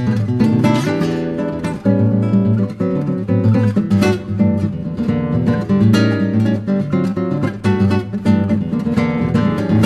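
Background music: acoustic guitar being strummed with picked notes, steady and lively.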